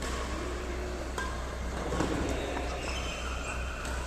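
Badminton rally: a few sharp racket strikes on the shuttlecock, the loudest about two seconds in, with brief high squeaks, over a steady low hum.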